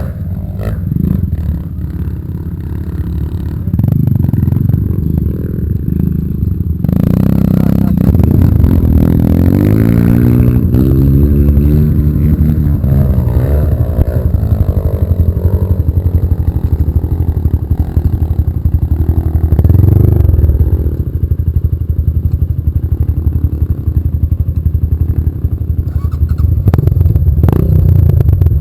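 Off-road trail motorcycle engines running and revving, the pitch rising and falling several times as the throttle is worked.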